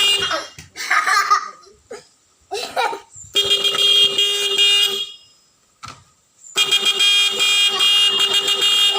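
12 V electric bike horn switched by an Arduino-driven relay, sounding two long blasts: one of about a second and a half just before the middle, and a longer one starting about two-thirds in. Short pitch-bending sounds come earlier.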